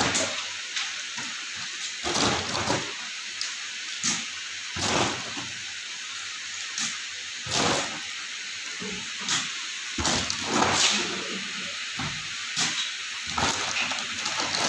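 Plastic water bottles being packed into a cardboard carton: irregular knocks and scrapes of bottles against each other and the cardboard every second or two, over a steady hiss.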